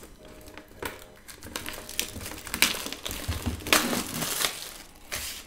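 Cardboard packaging of a trading-card box being handled and pulled open by hand: crumpling and crinkling with scattered scrapes and clicks. The heaviest rustling comes at about two and a half seconds and again for most of a second around the four-second mark.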